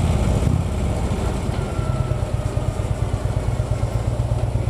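Harley-Davidson motorcycle engine dropping in speed about half a second in, then idling with a steady, uneven pulse.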